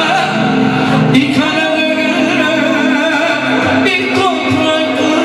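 Live band music: a man singing into an amplified microphone in long, wavering held notes, backed by clarinet and electronic keyboard.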